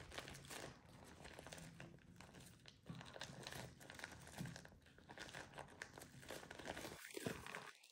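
Faint crinkling of a clear plastic Bobo balloon's neck as it is handled and worked around a bottle nozzle.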